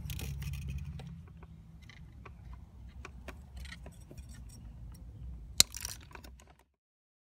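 Small metallic clicks and clinks of pliers working and twisting thin safety wire. About five and a half seconds in comes one sharp, loud snip as side cutters clip the wire's end.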